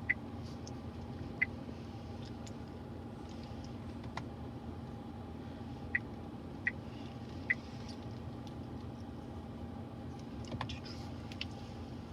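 Short high beeps from the Commodore's infotainment touchscreen as its on-screen buttons are pressed: five scattered blips, with a few fainter ticks near the end. They sit over a steady low cabin hum.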